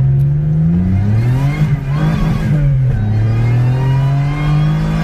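Toyota 1MZ-FE V6 engine accelerating hard, its note rising in pitch. The pitch drops back once about halfway through as the transmission shifts up, then climbs again.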